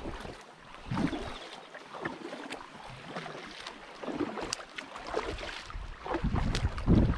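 Double-bladed paddle strokes of a packraft on calm river water, a splash and pull about once a second on alternating sides. Toward the end, wind starts buffeting the microphone with a low rumble that becomes the loudest sound.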